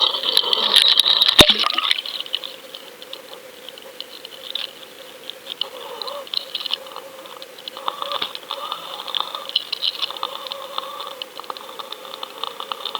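Crackly water noise heard through an underwater camera on a pike lure rig as it is pulled through the water, with one sharp knock about a second and a half in.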